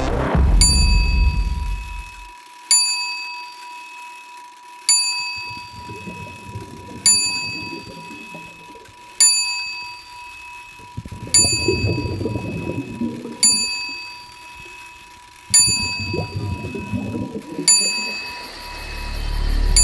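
Film soundtrack: a high bell-like chime struck about every two seconds, each strike ringing out and fading, over a steady high tone and swells of low rumble.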